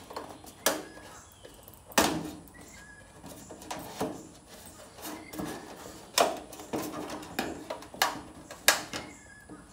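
Metal rain gutter sections knocking and clanking as two lengths are pushed and worked together by hand into an overlapping joint. The knocks are sharp and come about once a second, the loudest about two seconds in and near the end.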